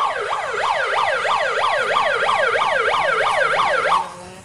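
Electronic siren sounding a fast repeating falling wail, about three to four sweeps a second, loud, cutting off suddenly near the end.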